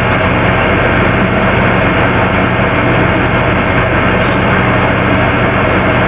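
Steady, loud hiss with a low hum underneath, unchanging throughout, with no distinct pops or voices standing out.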